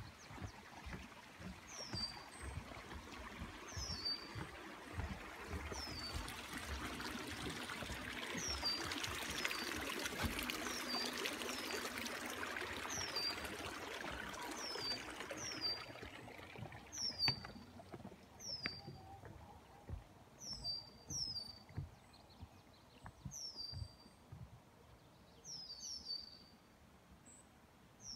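A small bird calls over and over, a short high note that falls in pitch, every second or two. Between about six and sixteen seconds, a hiss of trickling spring water swells and fades.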